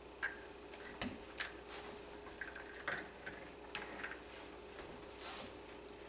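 Faint handling noises as annatto liquid is strained through a paper tissue into a cup: a few light clicks and taps, with a soft rustle of the tissue about five seconds in, over a steady faint hum.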